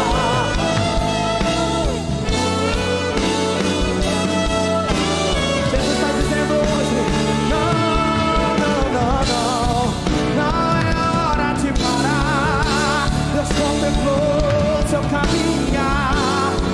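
Gospel worship music from a band with drums and bass, and a voice holding long notes with vibrato over it.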